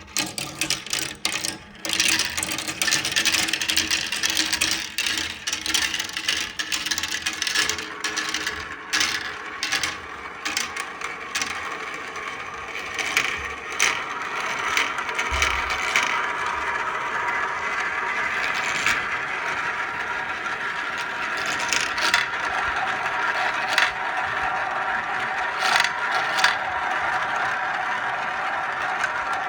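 Many marbles rolling down a marble run track together: a continuous rolling rush crowded with small clicks and clacks as they knock against the track and each other.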